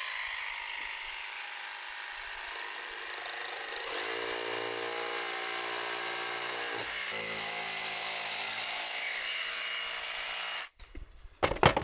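Electric jigsaw cutting a traced contour out of a wooden cladding board: a steady motor buzz with cutting noise. The motor note steadies about four seconds in, falters briefly near seven seconds, and the sound stops abruptly near the end.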